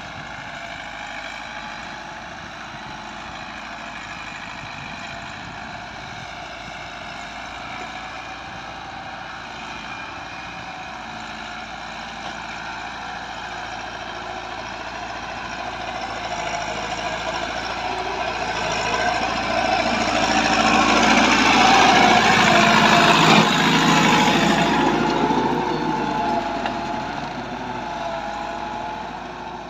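Massey Ferguson 385 tractor's four-cylinder diesel engine running steadily under load as it pulls a tine cultivator through the soil. It grows louder as the tractor comes close, is loudest about three-quarters of the way through, then fades as it moves away.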